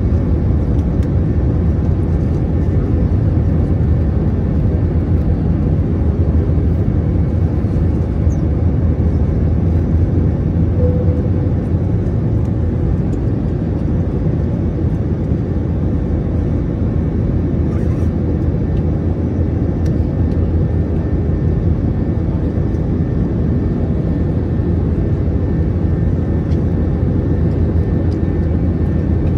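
Steady deep roar inside the cabin of an Airbus A321-231 climbing, its two IAE V2533-A5 turbofan engines at climb thrust, with a faint steady hum over it.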